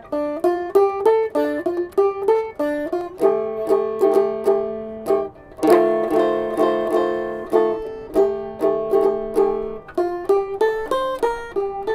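Handmade tin-can banjo ("canjo") with a wooden neck, picked solo. Quick single-note melody runs alternate with repeated picked chords, with a brief pause about five seconds in.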